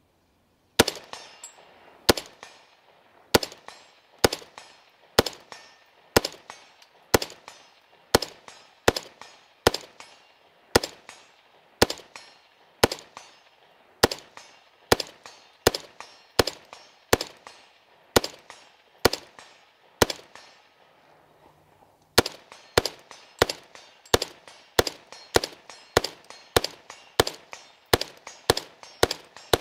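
CMMG MK47 AR-15 rifle in 7.62x39 firing unsuppressed in semi-auto, sharp single shots each with a short echo. They come about one a second, stop briefly about two-thirds through, then pick up to about two a second. The rifle feeds steadily from a 75-round drum with no stoppage.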